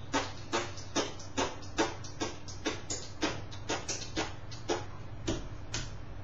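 A slightly uneven series of sharp taps, about two to three a second, stopping shortly before the end.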